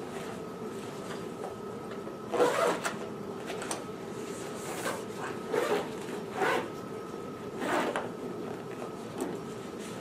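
Zipper on a fabric feeding-pump backpack being pulled shut in several short strokes, with fabric handling, the loudest stroke about two and a half seconds in. A faint steady hum runs underneath.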